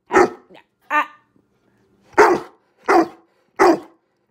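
Dog barking back at its owner after being told no: a short bark, a higher, more drawn-out yelp about a second in, then three short barks in a steady rhythm.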